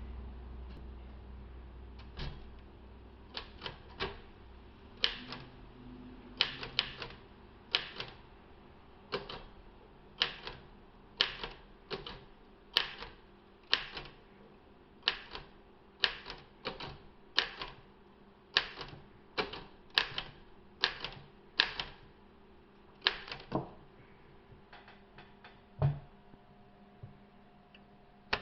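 Vintage Royal manual typewriter with glass keys, its keys struck one at a time, each stroke a sharp clack of the typebar hitting the platen, at an uneven pace of roughly one or two a second.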